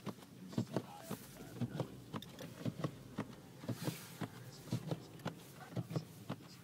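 Car driving slowly through deep snow: a run of irregular knocks and crunches, about three a second, over a low hum.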